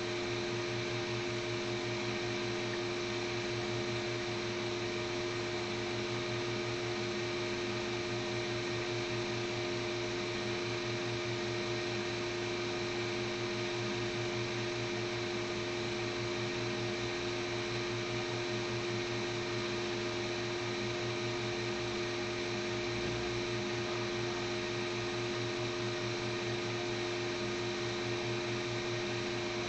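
A steady hum with hiss, unchanging throughout, with a few constant tones held within it.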